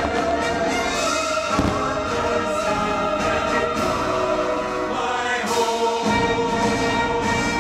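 Choir and orchestra music from a fireworks show soundtrack, with sustained sung chords. One firework thump comes about a second and a half in.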